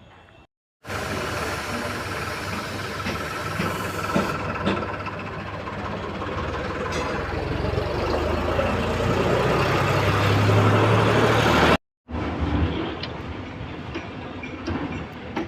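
A large engine or heavy machine running, growing steadily louder for about ten seconds before cutting off abruptly. After a brief gap comes a quieter stretch of mechanical noise with scattered knocks.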